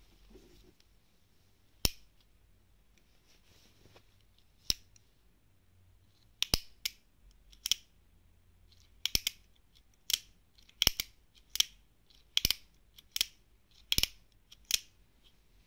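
Sharp metallic clicks from the action of a Pietta 1860 Colt Army black-powder revolver as its hammer is thumbed back and the cylinder turns. There are about fifteen clicks, sparse at first, then roughly one a second from about six seconds in, some coming in quick pairs.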